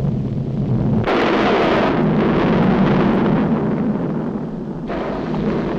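Animated-cartoon sound effect of a volcano erupting: a heavy, continuous rumbling blast that starts suddenly, grows harsher about a second in and eases slightly near the end.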